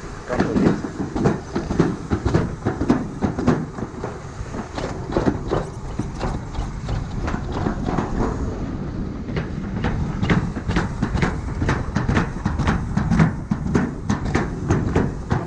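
Continuous irregular rattling and clattering of an amusement-park ride vehicle rolling along.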